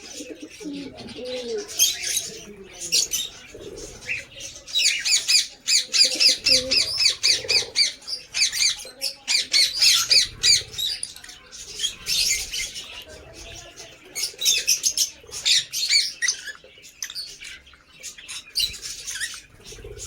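Lovebirds chattering: runs of quick, high-pitched chirps and squawks from several birds at once, with lower warbling, cooing calls underneath.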